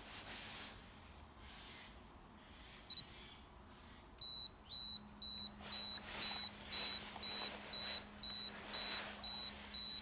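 Camera self-timer beeping: short, high, evenly spaced beeps, about two a second, starting about four seconds in and counting down to the shutter. Wet shuffling and splashing of a carp being handled on an unhooking mat comes in between.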